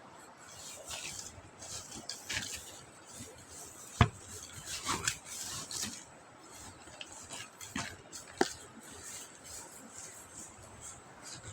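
Sawdust bedding being spread over a floor: irregular scraping and rustling strokes, with a sharp knock about four seconds in and a lighter one about eight seconds in.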